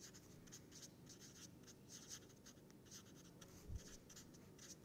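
A red felt-tip marker writing on paper: faint, quick scratchy strokes one after another. One soft low knock comes about three quarters of the way through.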